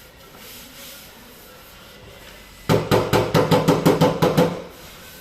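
Fast run of hammer strikes on a car body panel, about a dozen blows in two seconds with a ringing metallic tone, starting just over halfway in.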